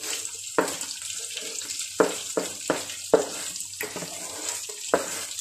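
Steady hiss of oil frying, with a knife scraping chopped onion off a plastic chopping board into a pan of batter, making about seven sharp clicks and knocks.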